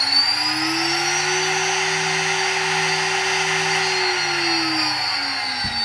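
Air-cooled CNC router spindle running under PWM variable-speed control, its variable speed now working. A high whine finishes climbing in pitch over the first second or so, holds steady, then winds down and stops near the end.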